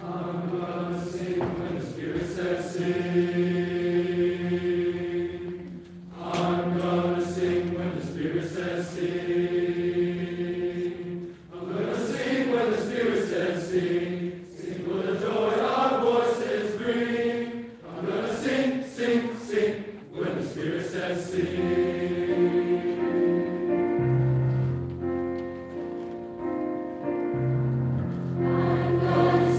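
Large mixed choir of children and teenagers singing sustained chords in parts, coming in together all at once. The phrases break off briefly every few seconds, and a lower held note enters in the last few seconds.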